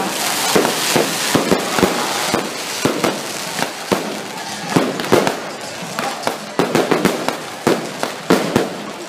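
Fireworks display: a rapid, irregular run of bangs and crackles from aerial shells and stars bursting overhead, with a hiss over the first couple of seconds.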